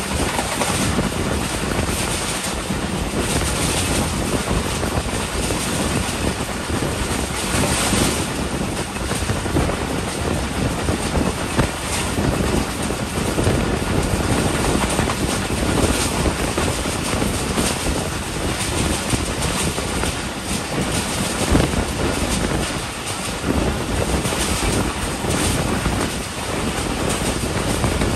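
Passenger train running at speed on the track: a steady rush of wheel-on-rail and wind noise, broken by a few sharper knocks.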